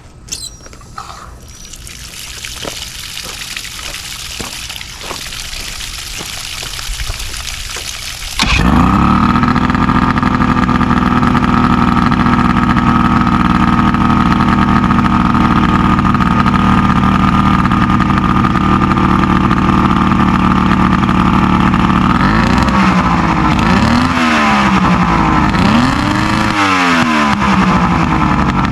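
A three-cylinder boat outboard motor, running on water after a new ignition trigger cured its crank-but-no-start fault. A hiss builds for about eight seconds, then the engine starts abruptly and runs steadily. Near the end it is revved up and down about four times.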